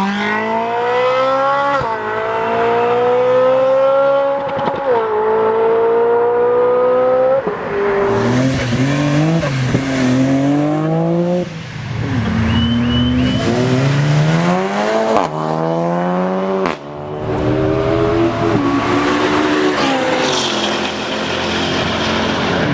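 Sports car engines accelerating hard at full throttle, the pitch climbing and dropping sharply at each upshift, followed by more cars revving and passing.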